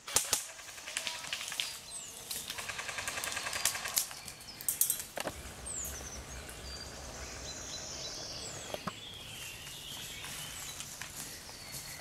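Airsoft guns firing: a couple of shots at the start, a rapid burst of fire from about two to four seconds in, a few more shots just before five seconds, then only the odd single shot while small birds chirp.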